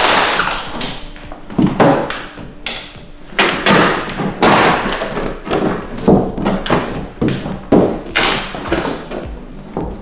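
Squeegee working wet paint protection film onto a car bonnet: a run of scraping swipes over the film, with light knocks between them.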